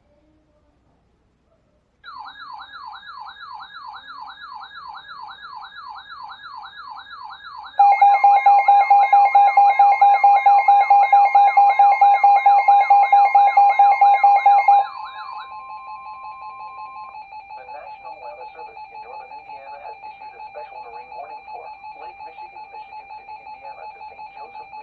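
Emergency alert tones for a special marine warning. A fast warbling siren-like tone starts about two seconds in. A much louder steady two-tone alert joins it about eight seconds in and stops near fifteen seconds, leaving a quieter rapid beeping.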